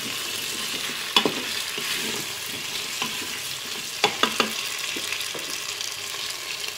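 Cubed potatoes sizzling in olive oil in a Cookeo multicooker's nonstick pot on browning mode, stirred with a wooden spatula. The spatula knocks and scrapes against the pot about a second in and several times around four seconds in.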